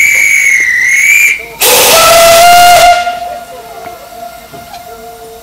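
Corris Railway No. 7, a replica Kerr Stuart 'Tattoo'-class saddle-tank steam locomotive, sounds its whistle: one high steady note that wavers slightly before it stops about a second and a half in. Then comes a loud hiss of steam for just over a second as the engine sets off, dying down to a faint steady tone with a soft hiss.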